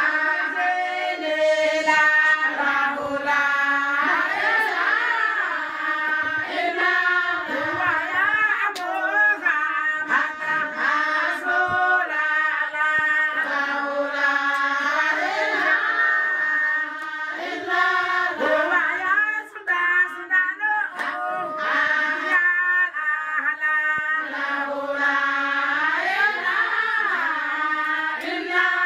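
A group of women singing an Islamic devotional chant together, many voices holding and bending the melody without a break.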